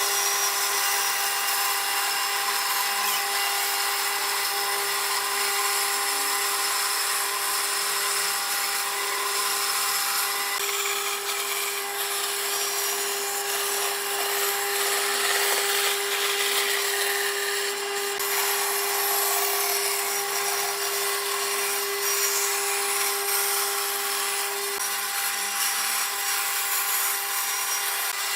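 Electric power tool running steadily while cutting or working wood, its motor giving a constant whine under the noise of the cut.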